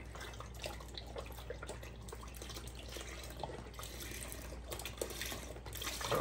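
Milk pouring from a carton into a pot of cooked rice, splashing and dripping irregularly as the carton is squeezed empty, with a slightly louder splash near the end. A steady low hum lies underneath.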